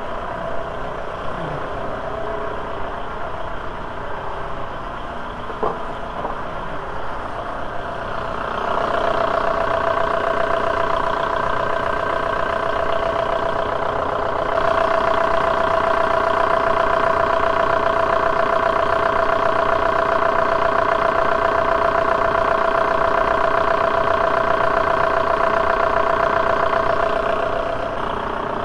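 1.9L ALH TDI four-cylinder diesel idling steadily as it warms up to open a newly fitted thermostat and push air out of the cooling system. About a third of the way in a steady whine joins it, gets louder about halfway through, and drops back near the end.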